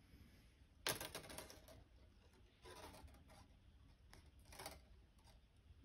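Faint handling sounds of fine 22-gauge wire being drawn through a wire-wrapped cuff and its beads: a sharp click about a second in, then brief scrapes and rustles.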